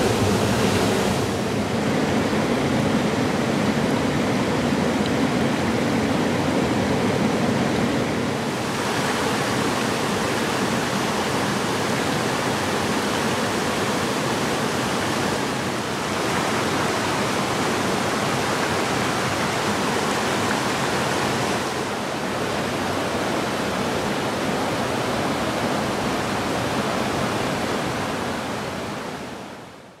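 Mountain stream rushing over rocks and through rapids, a steady loud roar of water that shifts slightly in level a few times and fades out at the end.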